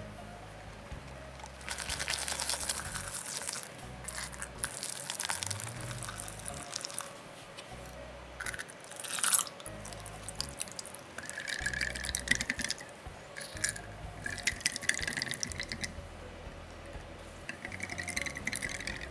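Whisk beating a wet batter in a glass mixing bowl, sped up: several bursts of rapid clicking and wet swishing against the glass, with short pauses between them.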